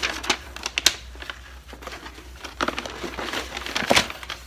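Paper packaging in a cardboard box crinkling and rustling as hands dig through it and pull out a plush toy, with a few sharper crackles about a second in and near the end.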